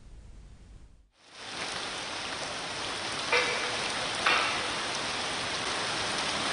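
Hail and rain pelting down: a dense, steady hiss that fades in after about a second, with two sharp knocks about a second apart near the middle.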